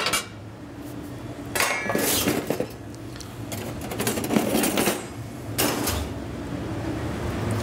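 White ceramic plates set down one after another on a stainless steel counter, a few short clatters, over a steady low kitchen hum.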